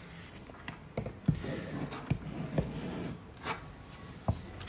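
Handling noises from a model airplane being moved about and put down: scattered light knocks and clicks, about six of them, over soft rubbing.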